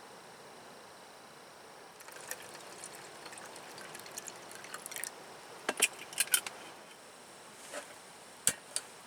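Faint steady hiss with a scatter of small clicks and taps, a few sharper knocks about six seconds in and one more near the end.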